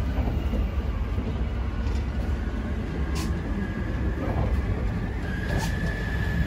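Train running: a steady low rumble, with two short hisses and a thin steady whine that comes in about five seconds in.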